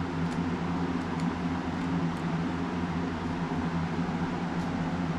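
A steady low mechanical hum, with a few faint light clicks from small steel hydraulic fittings being handled.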